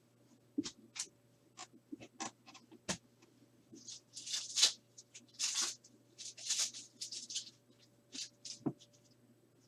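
Trading cards and a foil card pack from a 2020 Contenders Football hobby box being handled: light clicks and taps, then several bursts of rustling in the middle as the pack and cards are worked, then a few more taps.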